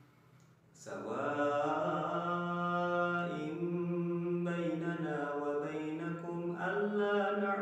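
A young man's solo voice reciting the Qur'an in tartil style: melodic chanting in long phrases with held notes. It begins after a brief pause near the start.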